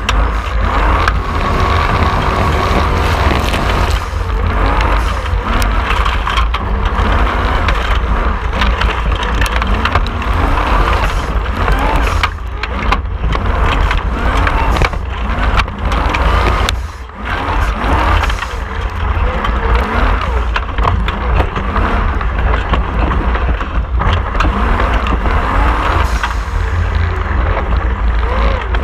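Heard from on board, an unlimited-class Formula Offroad buggy's engine is revving hard, its pitch rising and falling repeatedly with the throttle under a heavy low rumble and frequent sharp knocks. About two-thirds of the way through it briefly drops off before picking up again.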